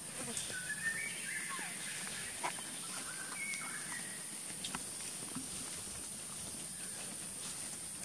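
Outdoor ambience: a steady high-pitched hiss with a few short chirps, some sliding down in pitch, in the first half, and occasional light clicks.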